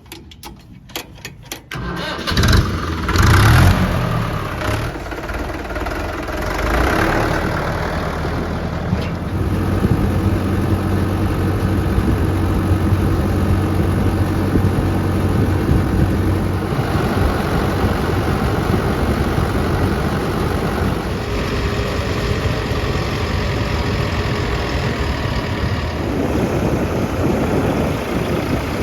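A diesel engine starting: a few clicks, then it catches about two seconds in with a brief loud rev and settles into running steadily.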